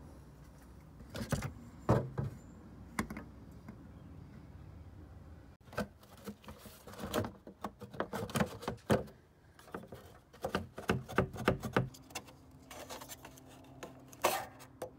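Irregular clicks, taps and rattles of hands working plastic and rubber engine-cover parts, most dense in the middle, over a faint steady low hum.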